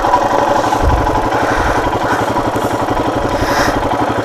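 Royal Enfield Himalayan's single-cylinder engine idling with a steady, even beat.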